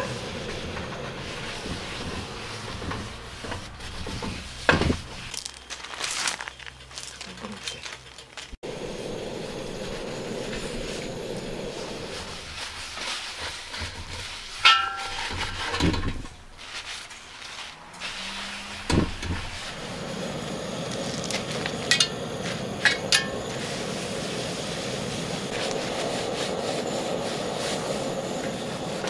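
Metal tongs scraping and clinking on a cast-iron pot-lid griddle as oil is rubbed into it with a paper towel to season it, over the steady hiss of a portable gas burner. A handful of sharp clinks stand out, a few of them ringing briefly.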